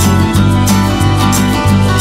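Background music with a steady beat over a sustained bass line that changes note every half second or so.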